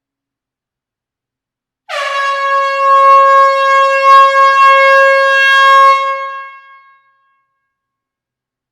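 Air horn sounding one long, loud blast in a closed hall: it starts suddenly about two seconds in, holds a steady pitch for about four seconds, then tails off.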